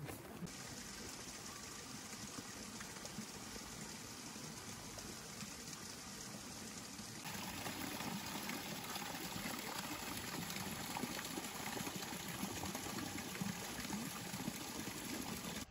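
Steady splashing of a small waterfall running over rocks into a garden stream, louder from about halfway through.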